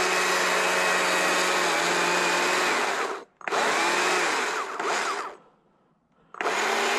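Chainsaw running at high revs, cutting into a thin stick of wood. It runs in three stretches, cutting off sharply twice, near the middle and again at about five seconds. In the later stretches its pitch dips and wavers as the chain bites in.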